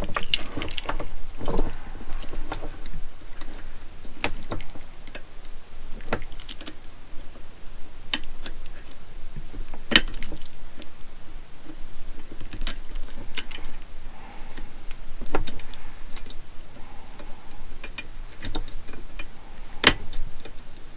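Irregular light metallic clicks and taps of a small tool and brass lamp and gimbal fittings being handled, as a fitting at the lamp's base is worked loose. A sharper click comes about ten seconds in and another near the end.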